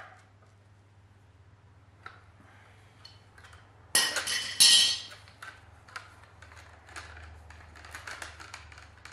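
Metal clinks and clatter of hand tools and the steel dipstick tube as the tube is worked loose from a Saab 900 engine block. A loud ringing metallic clatter comes about four seconds in, followed by lighter clicks and scrapes.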